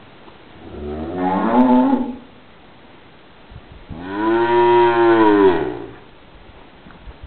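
Dairy cow in labour mooing twice. First comes a shorter moo rising in pitch about a second in, then a longer, louder moo about four seconds in that rises and falls.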